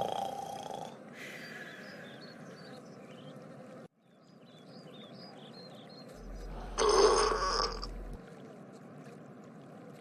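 A loud, drawn-out burp about seven seconds in, lasting about a second and a half. Just before it, in the first second, the tail of a snore fades out.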